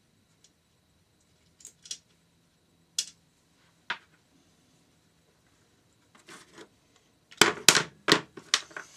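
Metal tools clicking and clinking against the engine while the 10mm bolts holding the rear cam chain guide are undone. A few scattered single clicks come first, then a quick run of louder clinks near the end.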